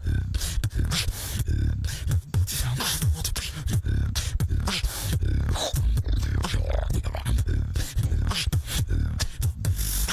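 Solo beatboxer performing into a handheld microphone: a heavy, continuous inward bass under fast clicks and snares, with a few sliding vocal tones.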